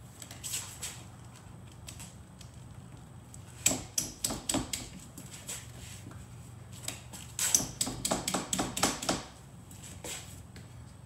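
Rubber window seal being worked over the edge of the tailgate glass with a plastic trowel: rapid clicks and taps of plastic and rubber against the glass, in two quick bursts, about four seconds in and again from about seven to nine seconds.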